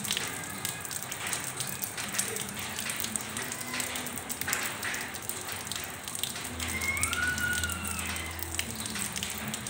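Steady rain falling on wet hard ground, drops splashing into a shallow puddle.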